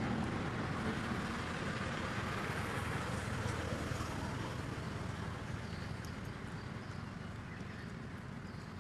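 Steady outdoor background noise, mostly low and rumbling, slowly fading away.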